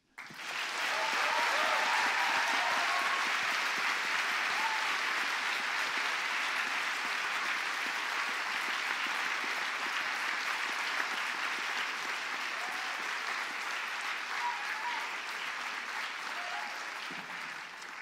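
Audience applauding, starting suddenly and going on steadily before dying away near the end.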